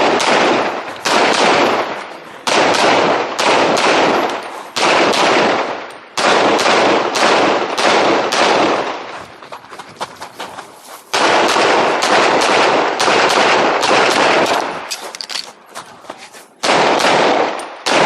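Handgun shots fired in quick strings during an IPSC practical shooting course of fire, several shots a second with short pauses between strings and lulls near the middle and near the end. Each shot rings on with a short echo.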